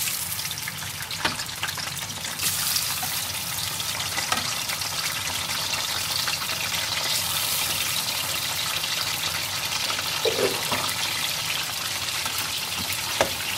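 Raw mutton pieces sizzling steadily in hot oil with whole spices, with a few brief clicks along the way.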